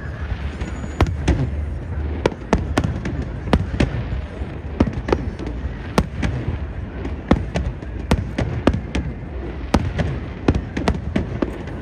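Aerial fireworks bursting overhead: a rapid, irregular string of sharp bangs over a steady low rumble.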